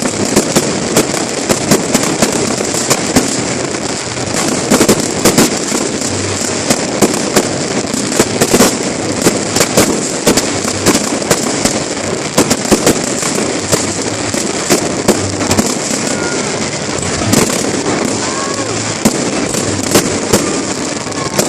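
Fireworks going off in a dense, continuous barrage: many sharp bangs and crackles a second over a steady rumbling hiss.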